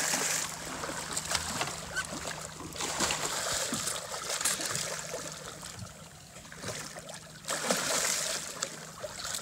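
A large tarpon thrashing at the surface beside a boat's hull, the water splashing and churning in repeated surges, loudest at the start and again about three-quarters of the way through, over a faint steady low hum.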